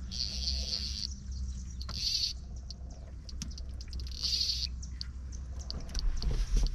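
Fly reel's clicker drag buzzing in three short bursts as a hooked snook is played on the fly rod.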